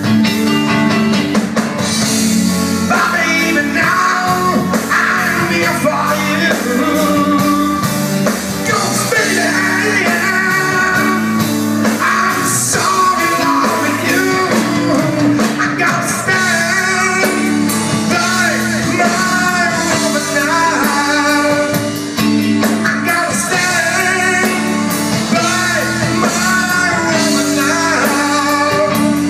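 Live rock band playing a song: guitars and drum kit with a sung vocal line.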